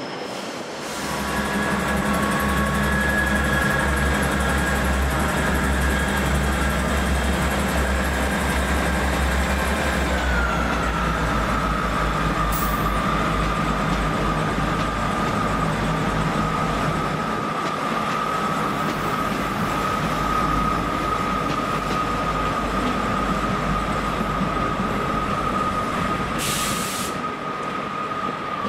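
Passenger train running at a station platform. A low hum and a steady high whine start about a second in, and the whine drops in pitch about ten seconds in, then holds. A short hiss comes near the end.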